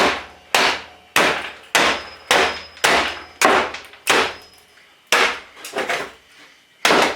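Hammer blows on an old desktop computer's case, about ten sharp strikes roughly every half second, with a pause before a last strike near the end, knocking a stuck part loose.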